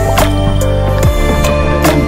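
Background music with held notes and a steady beat, a little under one beat a second.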